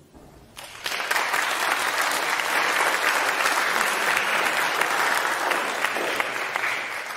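Audience applauding: it breaks out about a second in, holds steady, and dies away near the end.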